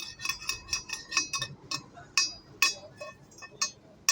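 Steel being struck with a hammer in a series of sharp, ringing clinks. They come quickly at first, then slow to about two a second.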